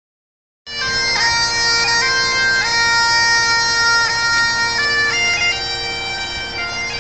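Bagpipes playing a slow tune over a steady drone, with quick grace-note flourishes between the melody notes; the piping starts abruptly just under a second in.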